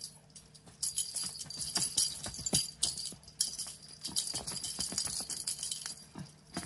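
A cat toy rattling in quick, irregular bursts with many light clicks and knocks as it is jiggled and batted by the cats.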